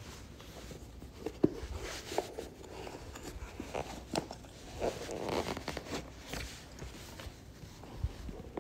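A foot being worked into a stiff leather wingtip oxford with a shoehorn. Soft rustling and scraping of leather and sock, with a few small knocks and clicks scattered through.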